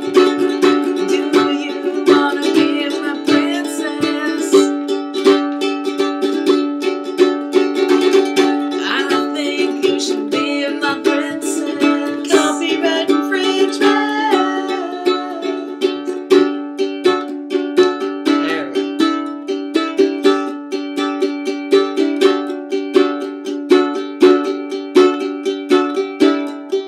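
Ukulele strummed in a steady rhythm of repeated chords.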